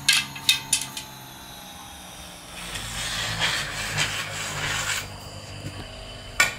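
Hand work on a hookah hose: rubbing and scraping, with several sharp clicks in the first second and one more near the end.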